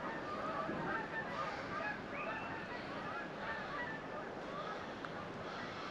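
A flock of geese in flight, honking continuously with many overlapping calls.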